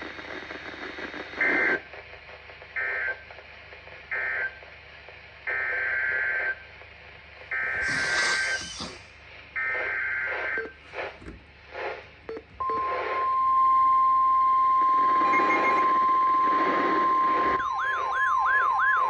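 NOAA Weather Radio alert sequence: three short screeching digital data bursts end the previous message, then three longer SAME header data bursts follow. About twelve and a half seconds in, the loud steady warning alert tone starts and holds, and a warbling tone joins it near the end.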